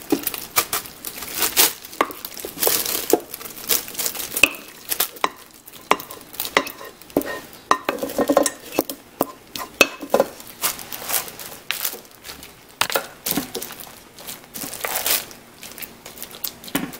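Soaked bread pudding being scraped out of a heavy bowl into a plastic-lined slow cooker and spread with a spatula: irregular scrapes, clicks and wet plops, with the plastic slow-cooker liner crinkling.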